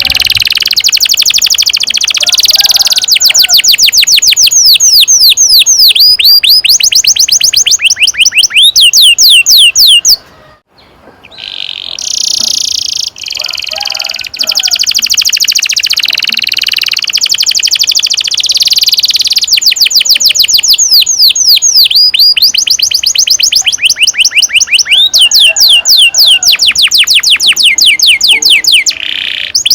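Domestic canary singing long, fast rolling trills of rapidly repeated falling notes, with a short break about ten seconds in before the song resumes.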